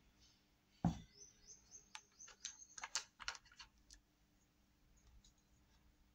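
A single knock on the wooden table, then a quick run of light clicks and taps from small plastic paint pots being handled. Some clicks carry short high squeaks.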